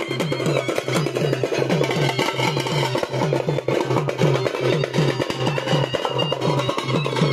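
Drums played in a fast, steady traditional beat, about three strokes a second, with sharp clicking strokes over a deeper thump.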